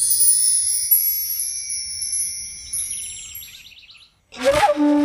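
Background score: high shimmering chime-like notes fading out over about four seconds, then after a short gap a held horn-like wind-instrument note starts sharply near the end.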